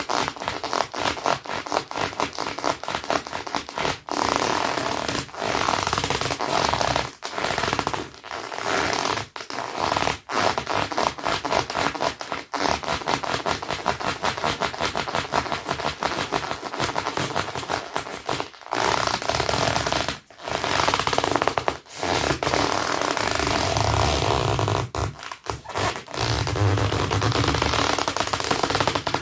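Dr Martens boots rubbed against each other, squeaking loudly in long runs of rapid stick-slip chatter broken by brief pauses every few seconds.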